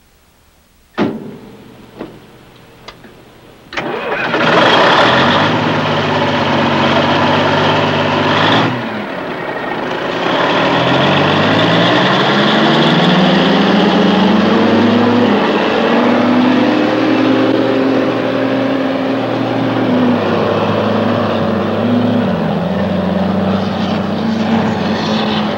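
A few short knocks, then the diesel engine of a large off-road haul truck starts about four seconds in and runs loud. Its pitch drops, then rises as the truck pulls away and keeps shifting up and down as it drives.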